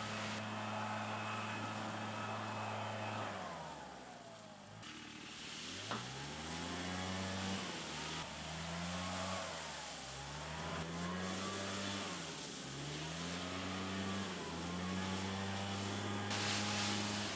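A motor vehicle's engine running steadily, then slowing. It then revs up and drops back about six times in a row, rising in pitch each time as if shifting up through the gears.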